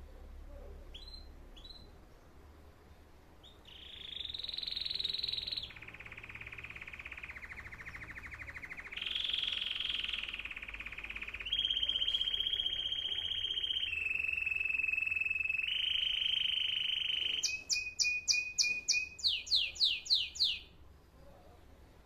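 Caged canary singing: a couple of short chirps, then a long song of rapid trills, each held for a second or two at a new pitch, ending in a fast run of repeated sweeping notes before it stops.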